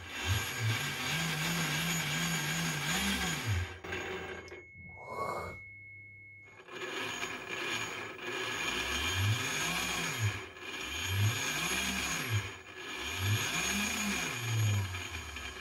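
Battery-powered electric motor spinning up and back down under a hand-worked throttle, over a steady hiss. One long rev held near the top for about three seconds, a brief drop-out, then three shorter rev-ups that fall away again.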